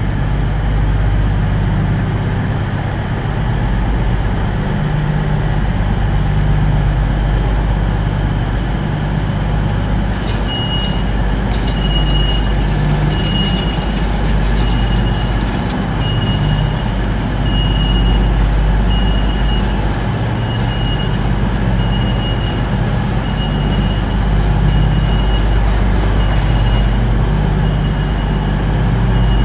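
Diesel train engine idling steadily with a deep, even drone. From about a third of the way in, a high electronic beep sounds roughly once a second.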